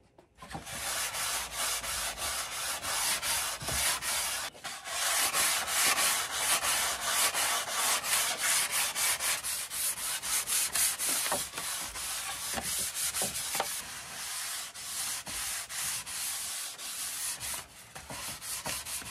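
Sandpaper rubbed by hand in quick back-and-forth strokes along a balsa-wood wing leading edge, smoothing and rounding it after planing.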